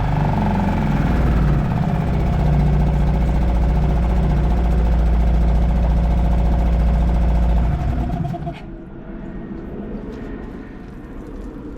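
Suzuki DF 2.5 hp single-cylinder four-stroke outboard running steadily in a test bucket of cooling water, then shut off about eight seconds in.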